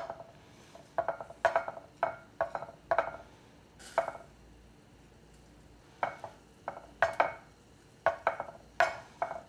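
A utensil clinking and scraping against a dish in quick runs of short ringing knocks, with a pause in the middle, while flour and salt are mixed and the short ribs are coated in it.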